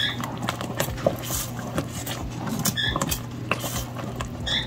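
Wooden spoon stirring thick cheese sauce in a stainless steel pot, with repeated short scrapes and clicks of the spoon against the pot, over a steady low hum.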